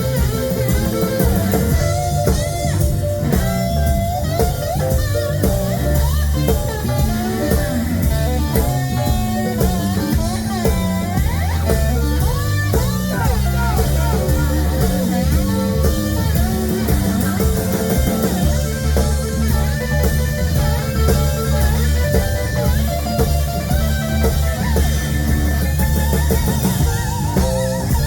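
Live electric blues band playing an instrumental break: a lead line with bent notes over bass and a drum kit keeping a steady beat.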